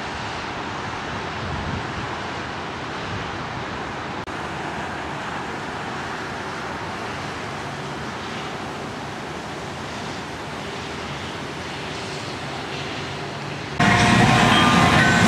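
Steady outdoor noise with no distinct events. Near the end it suddenly jumps much louder, to a dense noise with brief tones in it.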